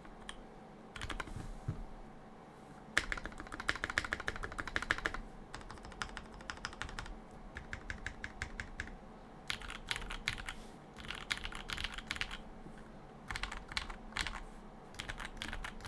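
Typing on a Vanguard65 custom mechanical keyboard with Sinister linear switches, GMK keycaps and a carbon-fibre plate. It comes as several runs of rapid keystrokes with short pauses between them; the fastest, densest run is a few seconds in.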